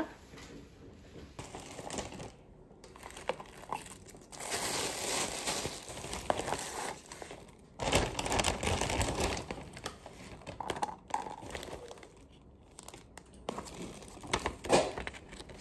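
A paper takeaway bag and thin plastic bags rustling and crinkling as takeaway food is unpacked, in uneven bouts with a few sharp clicks.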